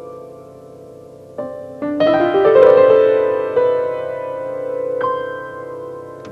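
Solo grand piano playing a slow, quiet passage. About two seconds in, a quick run of notes builds into the loudest chord, which is left to ring. A single note is struck about five seconds in.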